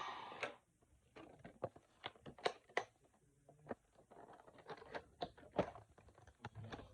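A Rubik's Cube box being handled and opened by hand: scattered light clicks, taps and brief rustles, irregular and spaced out.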